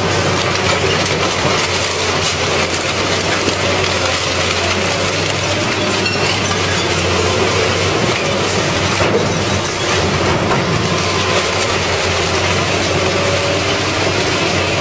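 Industrial metal shredder tearing up car parts: continuous grinding and crunching of metal over a steady low machine hum.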